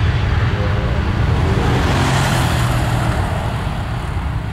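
Airbus A320 jet engines at takeoff thrust on the runway: a loud, steady low rumble with a roar that swells to a peak about two seconds in and eases as the airliner rolls past toward lift-off.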